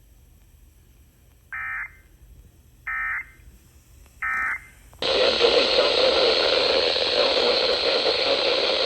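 Three short bursts of EAS/SAME digital data tone, evenly spaced about a second and a half apart, the end-of-message code that closes a weather-radio alert. About five seconds in, a steady hiss of radio static comes up and runs on.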